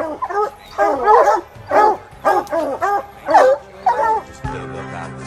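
A hunting hound barking up a tree at its treed quarry, a steady run of short barks, two to three a second. About four and a half seconds in, the barking stops and background country music comes in.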